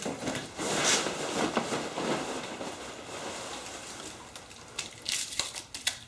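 Hands rummaging through loose packing peanuts in a cardboard shipping box, a rustling, crackling shuffle, with a few light knocks and clicks near the end as containers are handled.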